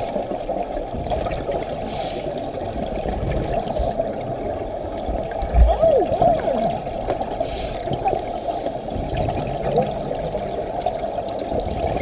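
Muffled underwater gurgling and bubbling, as heard by a submerged camera among scuba divers, with a single low thump about five and a half seconds in.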